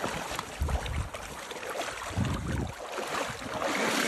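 Shallow river water splashing and sloshing as a large Atlantic salmon thrashes and a wading angler grabs it by the tail, with a few low thuds, getting louder near the end.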